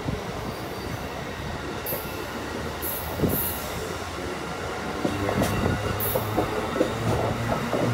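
Amtrak Amfleet passenger cars passing at speed: a steady rumble of wheels on the rails that grows louder about five seconds in, with scattered knocks and a few brief high hisses.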